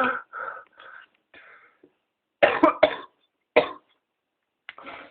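A person with whooping cough (pertussis) coughing in a fit of short, harsh coughs. One cough at the start trails into weaker ones; after a brief pause comes a quick run of loud coughs, then another about a second later and fainter ones near the end.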